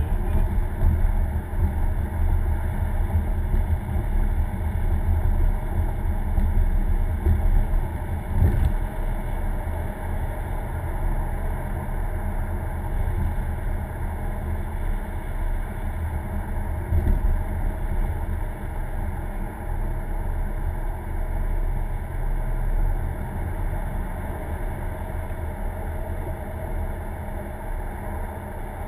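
Steady engine and tyre noise of a moving car, heard from inside the cabin, with two faint knocks along the way. It grows slightly quieter near the end.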